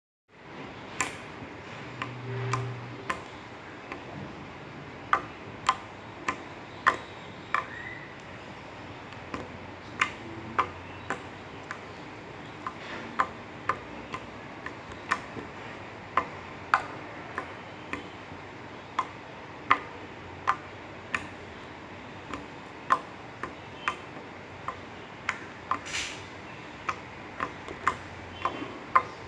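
Glitter slime being poked and squeezed, giving sharp clicks and pops at uneven intervals, about one or two a second.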